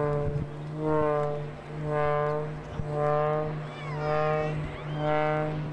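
An aerobatic biplane's piston engine and propeller droning steadily, the sound swelling and fading about once a second as the plane rotates through a tumbling, spinning manoeuvre.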